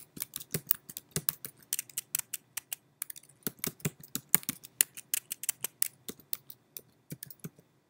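Typing on a computer keyboard: quick, uneven key clicks, with a brief lull about three seconds in, stopping shortly before the end.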